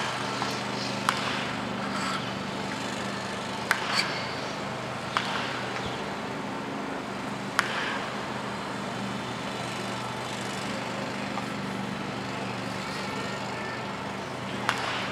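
Bat cracking on soft-tossed baseballs during toss batting, several sharp hits at irregular intervals with a long pause before a last hit near the end, over a steady low hum.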